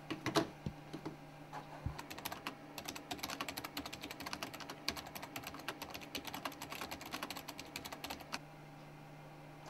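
Fast typing on a slim computer keyboard: a dense run of key clicks starting about two seconds in and stopping about a second before the end, after a couple of knocks at the start.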